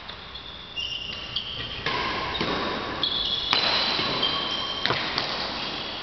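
Badminton-hall sounds: short high squeaks from shoes on the court floor and a few sharp knocks over a steady background rush.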